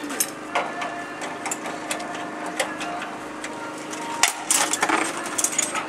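Hand tools clinking and knocking on the metal parts of a Ferguson TE20 tractor as it is worked on: irregular sharp clicks and taps, over a steady low hum that stops about four seconds in.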